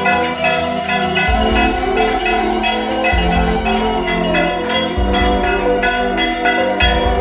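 Music with bright, bell-like tones over a steady beat, the bass shifting every couple of seconds.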